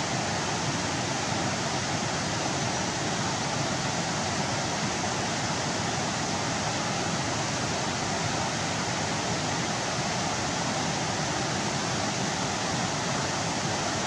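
Water rushing steadily over a small weir on a creek, a continuous even roar.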